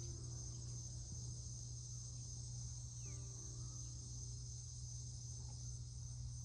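Steady high-pitched chorus of crickets, over a low steady hum.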